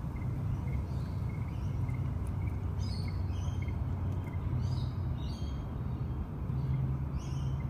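Steady low rumble of traffic on the road bridge overhead, with birds chirping in short calls a few times around the middle and again near the end.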